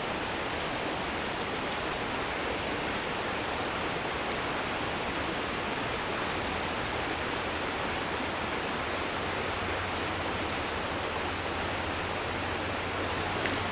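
Creek water running steadily, an even, unbroken rush of the current.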